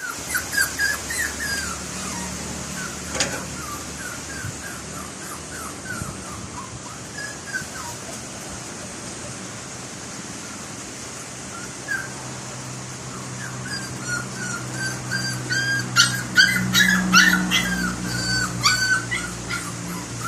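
A dog whimpering and yipping in many short high cries, which come thickest in the last few seconds, with a few sharp clicks among them.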